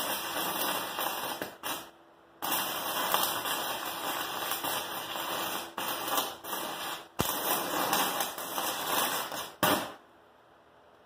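Stick-welding arc from a 36-volt battery arc welder, crackling and sizzling in several runs with brief breaks where the arc is lost and restruck. It stops about ten seconds in.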